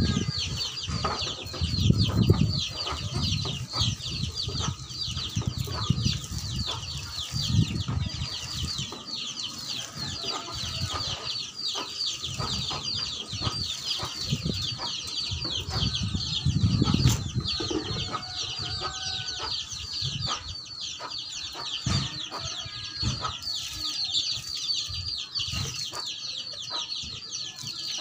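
Chickens clucking over a constant fast, high-pitched chirping, with a few low rumbles near the start and again past the middle.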